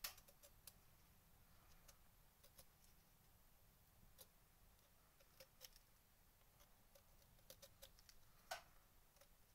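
Near silence broken by faint, irregular clicks of a knife blade paring the sides of a reed calame's nib to thin it; one click near the end is a little louder.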